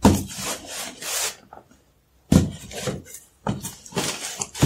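Cardboard rubbing and scraping as a foam-wrapped laptop is slid out of its box, in several short bursts with a brief silence near the middle.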